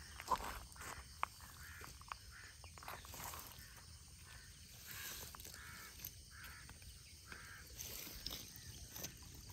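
Quiet outdoor background with scattered faint ticks and soft rustles as a nylon cast net is handled on gravel ground.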